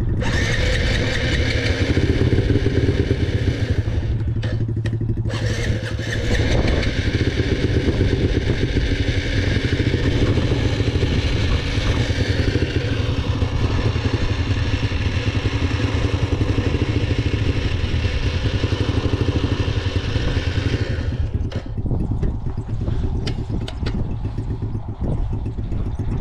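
Small air-cooled dirt bike's engine running under way at a fairly steady pace, with wind and rattle noise over it. The sound dips briefly twice, about four and five seconds in, and quietens over the last five seconds as the bike eases off.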